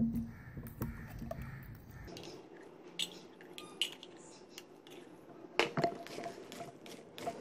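A metal spoon scooping canned fruit cocktail out of an open tin can, clinking and scraping against the can and the bowl rim in scattered knocks. The sharpest clinks come about two-thirds of the way in.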